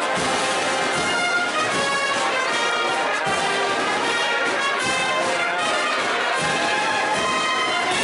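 Live processional brass band, trumpets and trombones, playing a slow march with sustained chords.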